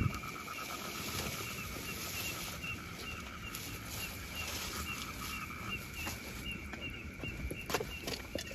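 Night insects calling: a steady high drone, a short chirp repeated about twice a second, and a fast buzzing trill that stops about five seconds in. A few faint clicks and rustles near the end.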